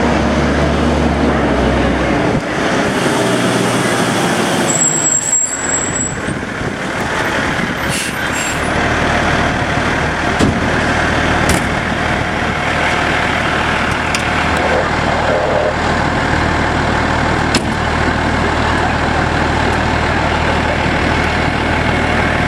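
Fire truck's diesel engine idling, with a steady low hum. A short high whistle sounds about five seconds in, and a few sharp clicks come over the engine noise.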